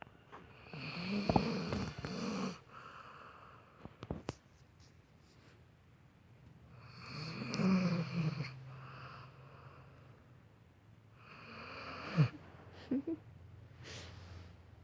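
Snoring: three long snores about five seconds apart, each swelling and then fading, with a few brief clicks between them.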